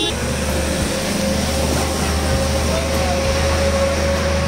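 Street-washing water tanker truck passing close by: its engine runs with a steady low hum under a broad hiss of water jets spraying the wet paving. A thin steady whine rises slowly in pitch.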